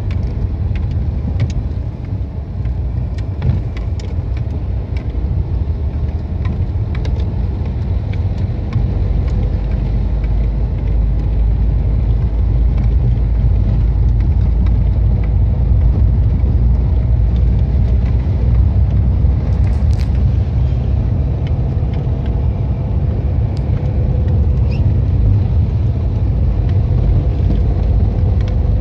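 Car driving on a snow-covered road, heard from inside the cabin: a steady low rumble of engine and tyres, with scattered light clicks.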